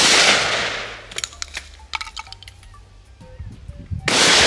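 Two shotgun blasts, one right at the start and another about four seconds in, each ringing out for about a second. Between them come a few sharp metallic clicks and clinks.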